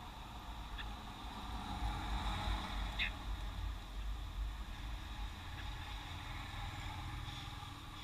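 Street traffic rumbling, swelling as a vehicle passes about two to three seconds in. A few short bird chirps sound over it, the clearest about three seconds in.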